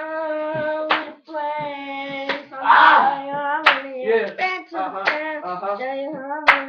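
A boy singing held, wordless notes, with several sharp hand smacks cutting in.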